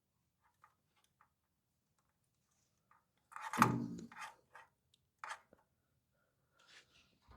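Light clicks and knocks of small parts and tools being handled while a bridge rectifier is fitted, with one louder clattering clunk about three and a half seconds in.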